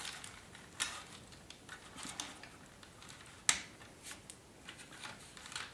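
Plastic clicks and handling of a Transformers Obliberator figure being posed, its plastic arm joints moved and fitted to its plastic battle station. Light ticks throughout, with a sharper click about a second in and the loudest one about three and a half seconds in.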